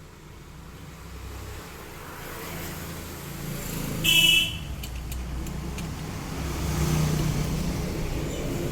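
A motor vehicle passing, its low rumble growing louder, with one short horn toot about four seconds in.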